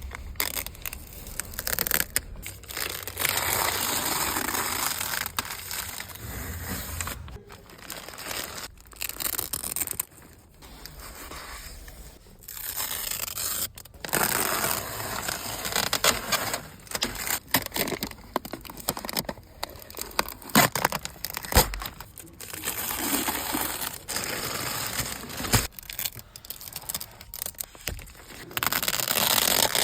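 Plastic protective wrapping being torn, peeled and crumpled off a new car, in uneven stretches of rustling and scraping broken by sharp crackles and snaps.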